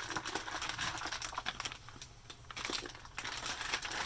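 Packaging crinkling and rustling as it is handled, in irregular bursts with short pauses.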